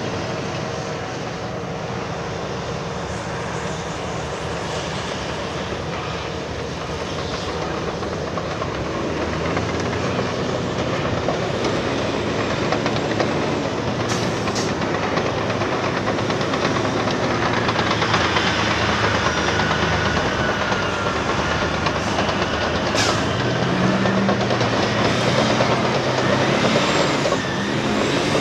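Heavy diesel earthmoving machines working: a Caterpillar 390D excavator and 773D dump trucks, with engines running steadily over a rattly mechanical din that grows louder from about eight seconds in.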